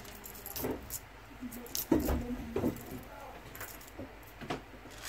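0.20 g plastic airsoft BBs clicking and rattling as they are pushed from a BB speed loader into a hi-capa pistol magazine: a run of irregular small clicks, with a louder knock about two seconds in.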